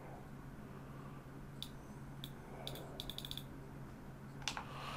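Faint clicks of a computer mouse and keyboard: two single clicks, then a quick run of about five or six, over a low steady hum.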